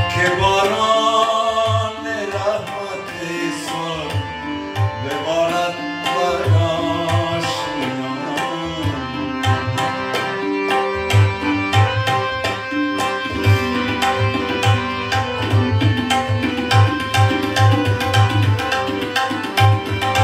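Afghan music on harmonium and tabla, with a sung line sliding in pitch over the harmonium's held notes for roughly the first half. From about ten seconds in, the tabla strokes come faster and denser under the steady harmonium.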